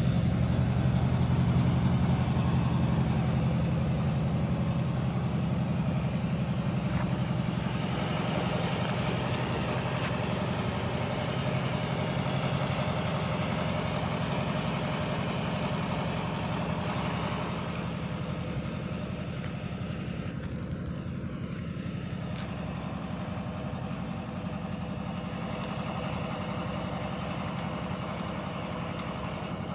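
A motor running steadily, a low mechanical drone like an idling engine, slowly growing quieter.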